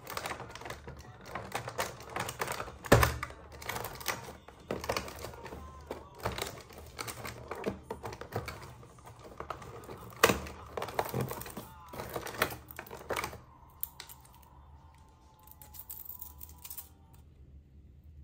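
Small plastic toys and packaging handled and unwrapped by hand: rapid, irregular clicks, taps and rustling, with a sharp knock about three seconds in and another about ten seconds in. The handling dies down about thirteen seconds in.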